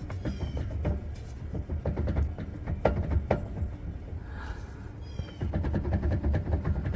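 Pontiac Trans Am rear differential and driveshaft being rocked back and forth by hand to check pinion play and gear backlash: irregular clunks and clicks with short squeaks, near the start and again about five seconds in. This is a check on a differential making questionable noises that the owner thinks needs a rebuild.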